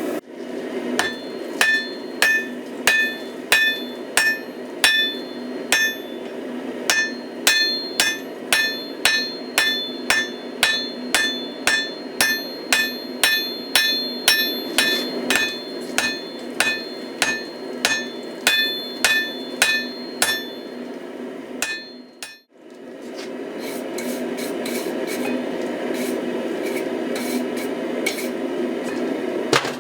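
Hammer blows on a hot Damascus billet on an anvil, forge-welding the layers: sharp ringing strikes about twice a second over the steady roar of the forge. After a brief break a little past the middle, lighter, quicker strikes follow.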